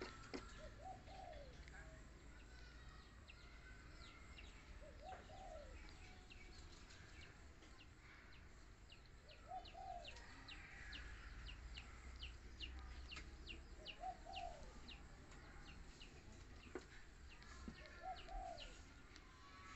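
Faint cooing of a dove in the background, one short call about every four seconds, with a quick run of thin, high chirps near the middle.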